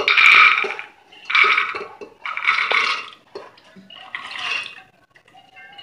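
Black chickpeas tipped by the handful into an aluminium pressure cooker pot: four pours, about a second apart, the chickpeas spilling against the metal.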